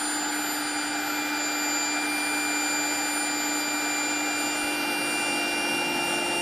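Black+Decker portable electric inflator running at a steady pitch, pumping air through its hose into an air mattress as the mattress fills.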